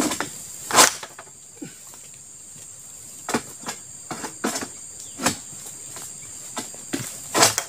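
Sharp knocks and cracks, about six at uneven intervals and loudest about a second in and near the end, as a Palmking egrek (long-poled harvesting sickle) is jerked against the base of an oil palm frond and fruit-bunch stalk. The blade is used unsharpened from the factory, and the uploader finds it bounces off rather than biting cleanly. A steady high insect drone runs underneath.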